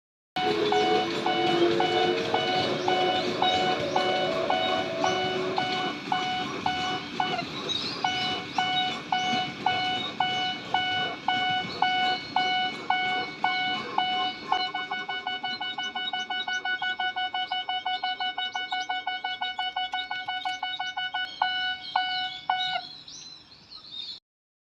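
Railway crossing warning bell on a miniature crossing sounding its electronic "kan-kan" in a steady rhythm of about two strikes a second, going quicker about halfway through and stopping near the end.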